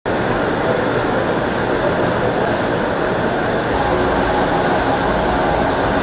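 Cabin noise of a diesel multiple unit (DMU) commuter train in motion, heard from inside the passenger carriage: a steady rumble and hiss from the running train. It changes to a deeper rumble about four seconds in.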